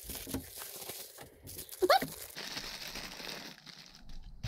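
Clear plastic bubble-wrap packaging crinkling and rustling as a new laptop cooling fan is handled and pulled out of it, with one short high squeak about two seconds in.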